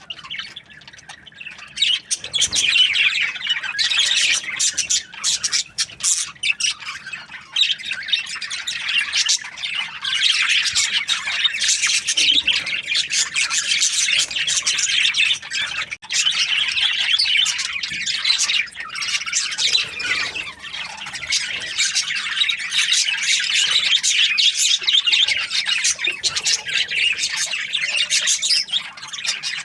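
A flock of budgerigars chirping and chattering, many birds calling over one another in a dense, continuous twitter, quieter for the first couple of seconds.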